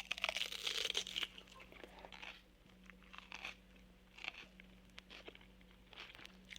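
A crunching sound effect from a Halloween sound-effects record: a long crackling crunch at the start, then four shorter crunches spaced a second or so apart.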